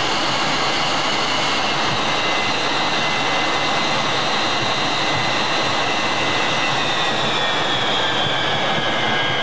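Mirage III's ATAR 09C turbojet running steadily at low power during taxiing: a loud, constant rush with high whine tones that dip slightly in pitch about seven seconds in.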